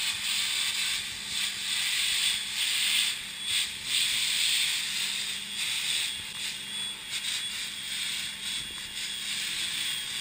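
High-pressure water jet from a pressure-washer lance hissing as it sprays a ship cooler's metal core. The hiss swells and dips as the jet sweeps across the surface, over a faint steady hum.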